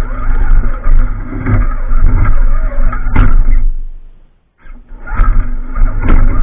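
Scale RC crawler's electric motor and geared drivetrain running under load as it climbs over rocks, with a steady hum and rough grinding surges. The sound cuts out for about half a second around four seconds in, then picks up again.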